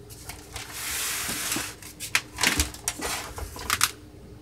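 Plastic housing of a Kodak 5600 Carousel slide projector being handled and turned over on a tabletop. There is a scraping rub, then several clicks and knocks, the last two close together near the end.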